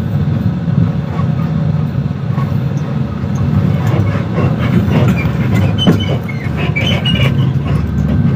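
Low, steady engine rumble and road noise heard from inside a vehicle moving in city traffic, with scattered clicks and short high squeaks from about four seconds in.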